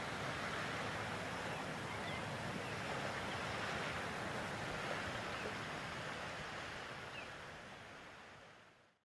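Steady outdoor hiss of wind and small waves at the waterside, with a few faint bird chirps, fading out to silence over the last two seconds.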